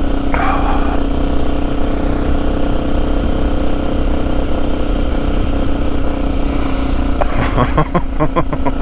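Motorcycle engine running steadily while the bike is ridden along a gravel road. Near the end comes a quick run of sharp clicks and knocks.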